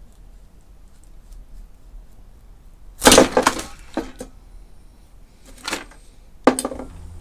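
Pliers crunching and tearing apart an old aluminium electrolytic capacitor can and its innards. A loud crackle comes about three seconds in, then a few shorter cracks and scrapes.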